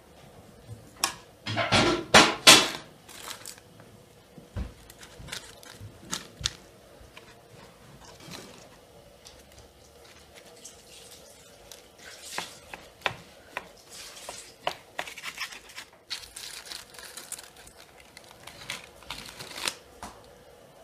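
Baking parchment and aluminium foil crinkling and tearing as they are pulled open on a metal baking tray. The loudest rustling comes in a cluster about two seconds in, followed by scattered crackles and light clicks.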